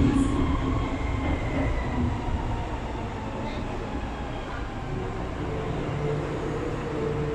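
Inside an MTR M-Train carriage under way: rumble of the running train with an electric traction motor whine that slowly falls in pitch and fades over the first few seconds. About five and a half seconds in, a steadier two-note hum sets in.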